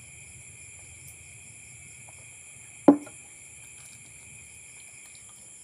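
Steady high chirring of crickets, with a single sharp knock about three seconds in as a drinking glass is set down on a table.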